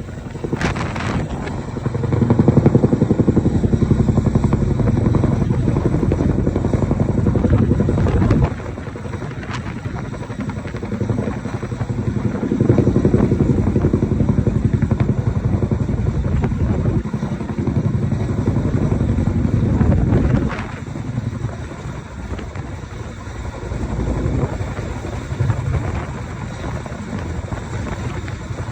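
Chinook tandem-rotor helicopter flying, its rotors giving a fast, even chop. It grows louder twice and drops away suddenly after each loud stretch.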